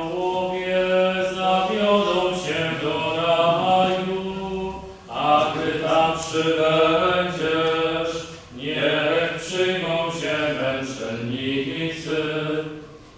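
Slow sung chant: voices hold long notes in phrases of about four seconds, with short breaks between phrases, over a steady low tone.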